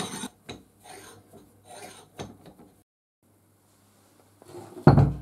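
Restored cast-iron bench vise being worked by hand: its T-handle turned and the movable jaw sliding on the spindle, a run of short scraping strokes. Near the end, a heavy thump as the vise is set down on the wooden workbench.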